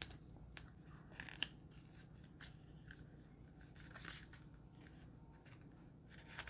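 Faint, scattered rustles and light taps of paper inserts and cardboard packaging being handled and taken out of an earbuds box.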